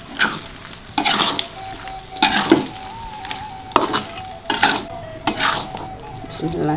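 A spatula stirring a pan of frying anchovy and red-chili sambal: about six scraping strokes a second or less apart, over the steady sizzle of the frying.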